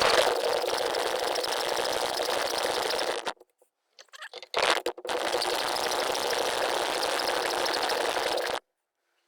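A power tool running steadily while cutting through a steel brake arm, in two long stretches separated by a break of about a second and a half.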